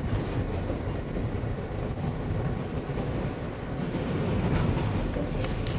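Subway train running, heard from inside the car: a steady low rumble of wheels on the track, with a few short clatters.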